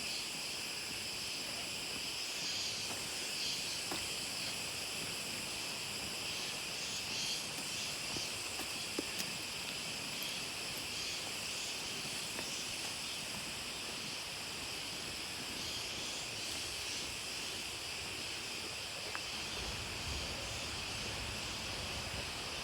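Steady, high-pitched chorus of forest insects, several droning strands layered together, over a faint rushing of running water from a nearby stream.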